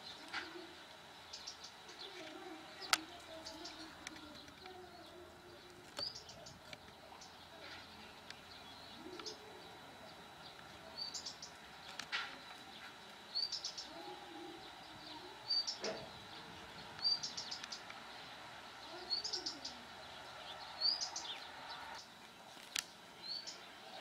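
Bird chirping: short, high, rising chirps repeat about every second or so from about six seconds in, over a few faint low calls and occasional sharp clicks.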